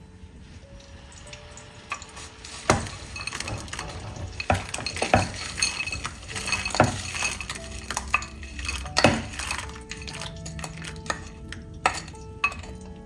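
A utensil stirring and scraping in cookware, with several sharp clinks against the rim, over soft background music.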